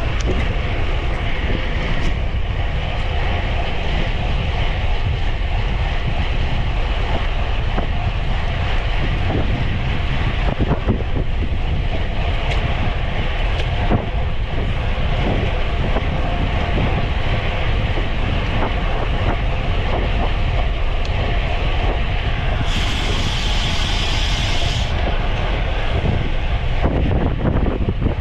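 Wind rushing over the microphone of a racing cyclist's camera, mixed with steady road and drivetrain noise and scattered small knocks. About 23 seconds in, a high-pitched hiss or buzz joins for about two seconds.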